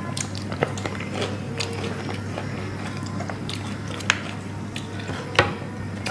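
Close-up eating sounds: chewing and biting, with scattered sharp clicks and taps, a few louder ones standing out, over a steady low hum.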